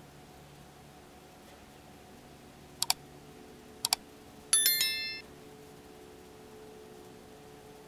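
Subscribe-button animation sound effect: two mouse double-clicks about a second apart, then a short bright notification chime of several ringing tones that dies away within about half a second.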